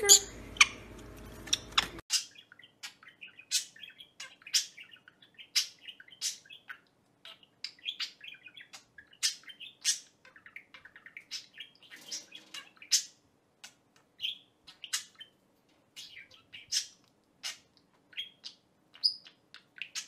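Budgerigar chirping and chattering: a long run of short, sharp chirps, several a second, with brief pauses between.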